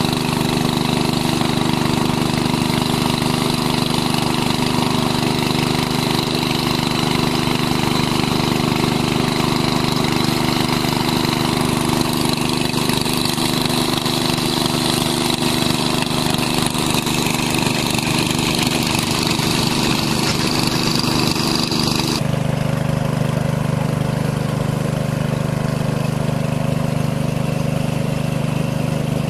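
Small single-cylinder petrol engine of a portable water pump running steadily at constant speed, pumping water out of a muddy pond. About three-quarters of the way through, the sound changes abruptly to a lower, steadier engine hum.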